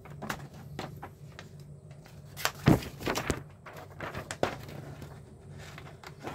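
Paper instruction booklet of a plastic model kit being handled and opened: page rustles and light taps, with one louder thump a little under three seconds in, over a low steady hum.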